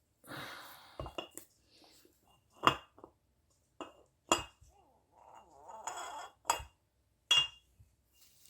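Metal engine parts clinking and scraping as they are handled on a workbench: several sharp metallic clinks about a second apart, with brief rattling and scraping between them.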